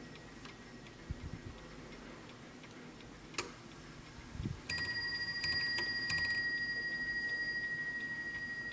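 Antique c.1855 French Vincent mantel clock striking the hour on its bell as the minute hand is pushed round to twelve: three strikes, each about three-quarters of a second apart, leaving one clear ringing tone that slowly fades. Before the strikes there is faint ticking, and a sharp click comes about three seconds in.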